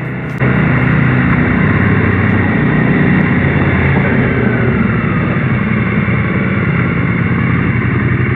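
Triumph Speed Twin 900's parallel-twin engine running steadily on the move. It cuts in loudly about half a second in.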